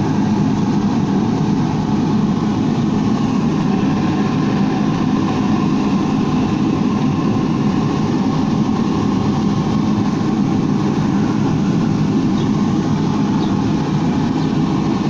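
Steady, even machine noise with no hammer blows.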